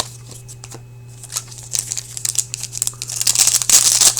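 Trading cards being handled with soft clicks and flicks, then a hockey card pack's wrapper crinkling loudly as it is torn open, about three seconds in. A steady low electrical hum runs underneath.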